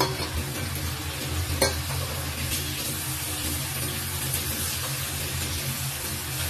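Strips of meat sizzling in hot oil in a frying pan while a wooden spatula stirs them, over a steady low hum. A single sharp knock about one and a half seconds in.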